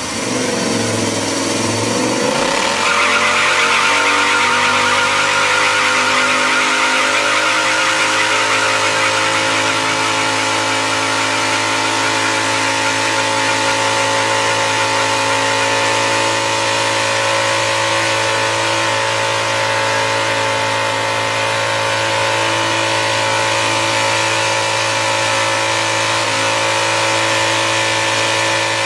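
A lawnmower's engine revs, then is held at steady high revs through a long burnout, its spinning tyre squealing against the ground.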